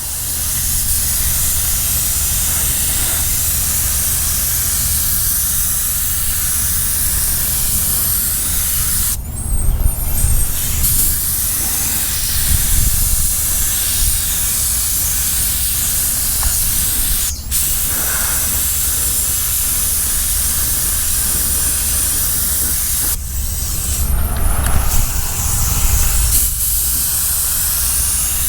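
Compressed-air spray gun spraying primer: a loud, steady hiss, cut off briefly about nine, seventeen and twenty-three seconds in as the trigger is released and pulled again. A low, steady hum runs underneath.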